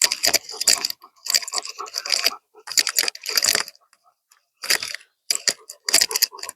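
Footsteps crunching on dry ground, a slow walking pace of about one crunchy step a second with a pause near the middle.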